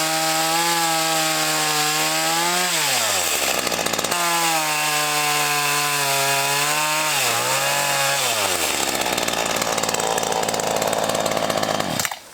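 Black Max 16-inch chainsaw's two-stroke engine running at high revs while cutting into a tree trunk, its pitch sagging and dropping away twice as the saw bogs down in the cut. The engine note then turns into a rougher noise that cuts off abruptly near the end.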